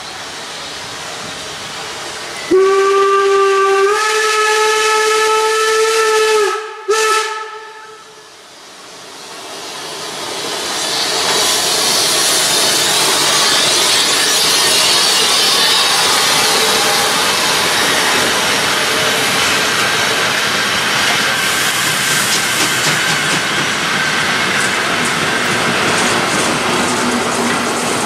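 Steam locomotive whistle blown for about four seconds, stepping up a little in pitch partway, then a short toot. It is followed by a class 86 steam tank engine and its coaches rolling close past with a steady hiss and the rush and rattle of the train.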